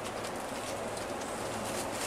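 Scania K360 coach on the move, heard inside the cabin: a steady mix of engine and road noise with a low hum and light scattered rattles.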